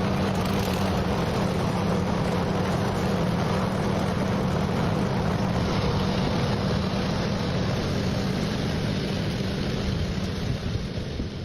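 A motor running steadily with a constant low hum, fading away near the end.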